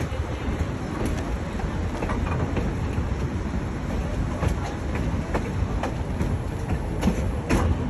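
Train running along the track: a steady low rumble with irregular sharp clicks and knocks from the wheels and couplings, more frequent near the end.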